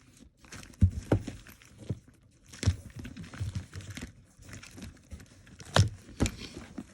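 Handling noise from purses and their packaging: rustling and crinkling, with several sharp clicks and knocks, loudest about a second in and near the end.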